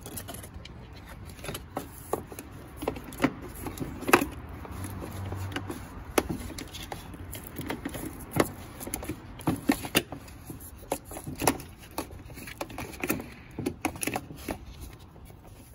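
Irregular metallic clicks, taps and knocks of hand tools and parts being handled while a replacement A/C condenser fan motor is fitted, over a low steady hum. The loudest knock comes about four seconds in.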